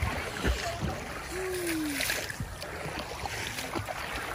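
Seawater sloshing and splashing close to the microphone as people swim in the surf, with irregular sharp splashes.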